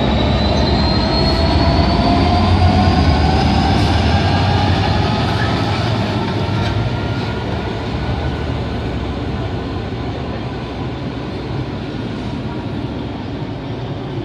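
Class 66 diesel locomotive pulling away under power: the deep throb of its EMD two-stroke V12 with a whine that rises in pitch as it gathers speed. The sound is loudest a couple of seconds in, then fades gradually as the locomotive moves off.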